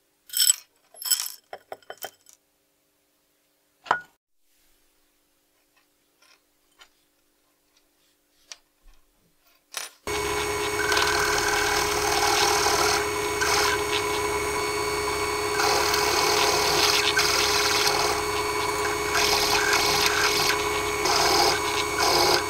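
A few light clicks and knocks of handling, then about ten seconds in a small drill press starts and runs steadily, its bit drilling through a thin metal strip held against a wooden block.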